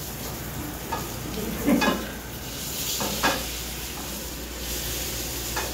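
Fish fillet frying in hot oil in a stainless sauté pan, a steady sizzle as it finishes cooking on its second side. A few short knocks break through it, about a second in, near two seconds, around three seconds and near the end.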